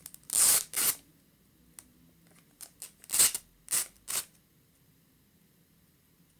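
Plastic packaging rustling as accessories are handled, in short bursts: two near the start and three more around the middle.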